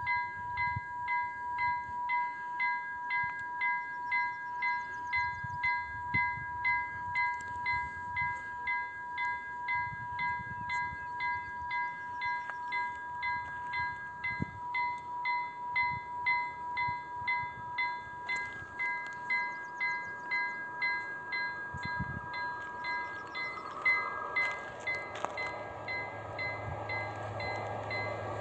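A Finnish level crossing's warning bell ringing steadily at about two strokes a second, the crossing active with its barriers down. Near the end an approaching train's rumble grows louder under the bell.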